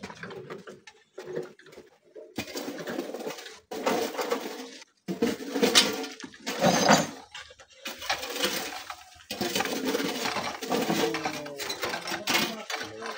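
Shovels scraping into gravel and stones, with rocks clinking and clattering into steel wheelbarrows, in irregular bursts that stop and start abruptly.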